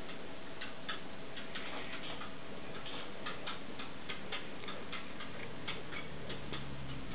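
Stone marten pup suckling while being hand-fed: a steady run of small clicks, about four a second.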